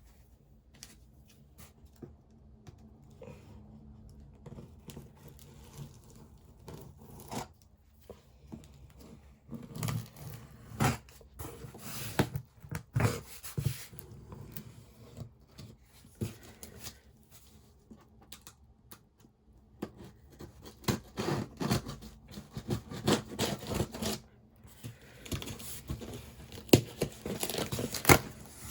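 Unboxing a MacBook Pro box: the packaging seal is torn open, and the box is scratched, scraped and rustled in irregular bursts of handling noise.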